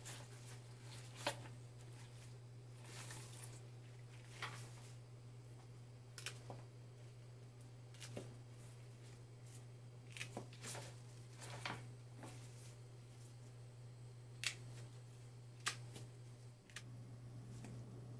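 Scissors snipping through carnation stems: sharp, crisp cuts at irregular intervals, several seconds apart at times and close together at others. A steady low hum runs underneath.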